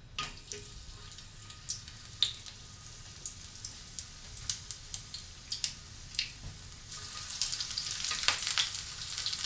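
Frozen chicken taquitos frying in oil at about 375° in an electric skillet, with scattered sharp pops and crackles. The sizzle grows louder about seven seconds in, as the second taquito goes in.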